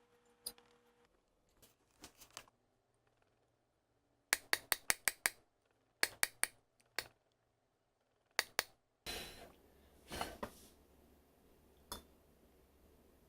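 Sharp clicks and clinks of kitchen utensils in quick runs of several, then a short scraping rustle and one last click.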